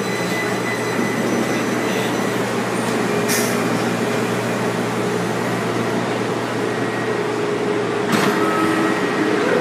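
Running noise inside a WMATA 5000-series (CAF) Metrorail car: a steady rumble with faint whining tones over it. There is a brief hiss about three seconds in, and the noise changes a little about eight seconds in.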